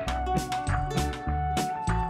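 Background music with a steady drum beat, a bass line and a held melody note.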